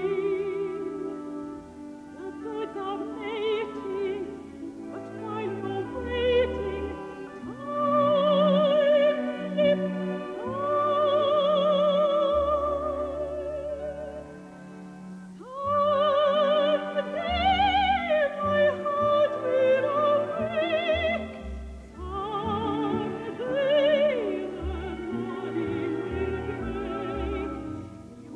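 A female soprano sings a slow, lyrical operetta-style song in full classical voice, holding long notes with wide vibrato. A low instrumental accompaniment plays beneath her.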